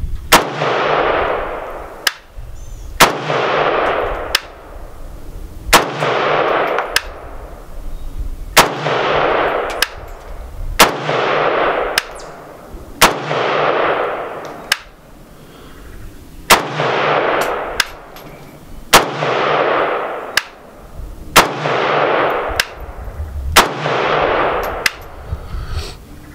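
Zastava ZPAP AK-pattern rifle fired in slow semi-automatic, about ten loud shots two to three seconds apart, each ringing out and fading over a second or so. A sharper, quieter crack comes about a second after each shot.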